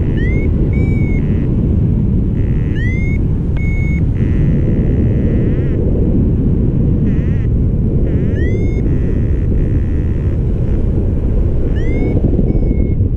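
Heavy wind rushing over the microphone in flight, with a paragliding variometer sounding through it: short rising chirps and brief steady beeps at a high pitch, scattered irregularly. This is the vario's climb tone, the signal of rising air in a thermal.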